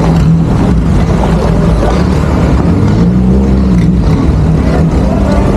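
A motor engine running steadily and loud, with a constant low hum.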